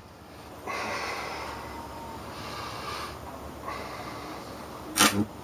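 A short, loud crackling zap from a high-voltage zapper built from a microwave oven's transformer, about five seconds in. A softer hiss runs before it.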